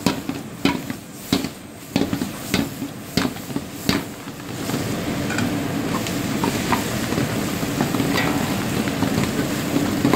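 A spatula knocking and scraping against an iron wok as chunks of lamb and tomato are stirred, with a run of sharp knocks over the first four seconds. After that comes steady sizzling of the food frying on high flame.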